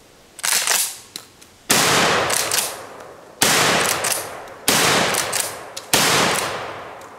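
RIA Carina nickel-plated shotgun fired five times in quick succession, about a second to a second and a half apart. Each shot is followed by a long echoing tail.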